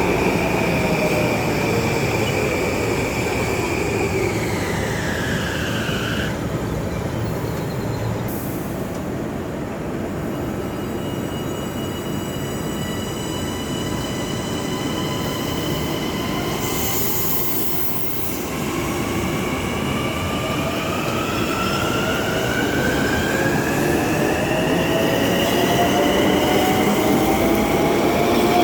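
Electric multiple-unit train (12-car M9 set) with its traction-motor whine falling in pitch as it slows, holding a steadier tone in the middle, then rising again for the last ten seconds or so as it picks up speed, over steady wheel and rail noise. A short hiss is heard about two-thirds of the way in.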